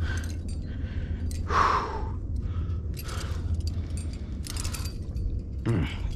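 A rock climber breathing hard in short repeated exhales while leading a strenuous route, with a louder exhale about one and a half seconds in and a short falling grunt near the end, over a steady low rumble.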